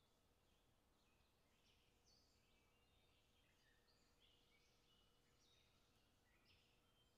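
Near silence, with faint birds chirping: many short overlapping calls, and a faint steady hum underneath.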